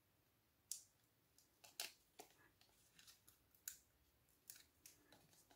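Faint, scattered crackles and clicks of the backing liners being peeled off Stampin' Dimensionals foam adhesive dots and of a small paper label being handled, about half a dozen sharp ticks with near silence between.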